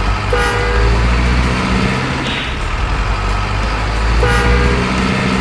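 Deep truck engine sound running steadily, with two short horn toots: one about half a second in, another about four seconds in.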